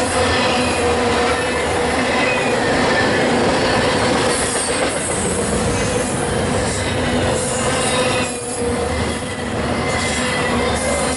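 Double-stack container well cars of a freight intermodal train rolling past close by: loud, steady steel wheels on rail with a steady whine riding over the rumble. The noise dips briefly about eight seconds in.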